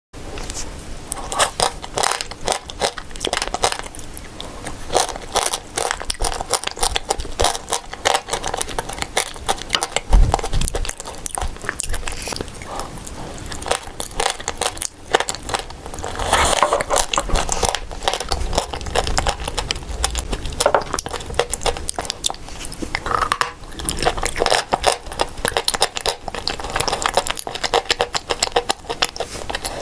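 Close-up biting and chewing of dry edible clay and chalk: a dense, continuous run of crisp crunches and crackles, with one low thump about ten seconds in.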